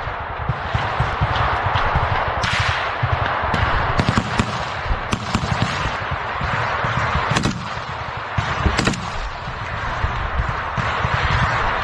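Heavy, continuous small-arms gunfire in a firefight: rapid rifle and machine-gun shots overlapping into a steady crackle, with several sharper, louder single shots standing out at irregular intervals.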